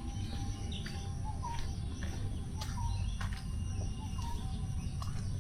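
Faint bird calls: a few short chirps about a second and a half apart, over a steady outdoor background.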